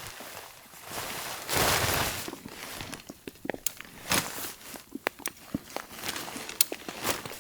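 Footsteps crunching in snow, the loudest crunch about one and a half seconds in, followed by a run of small sharp clicks and knocks.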